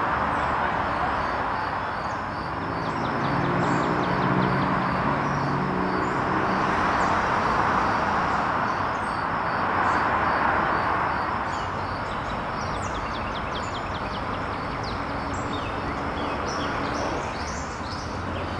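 Road traffic on a busy riverside road: a steady rush of passing cars that swells and fades, with a deeper engine hum from one vehicle a few seconds in. Small birds chirp repeatedly, high above the traffic.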